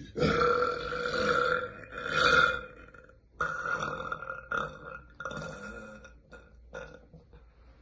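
A young woman burping loudly: one long burp, then a louder one about two seconds in, followed by a run of shorter burps that trail off.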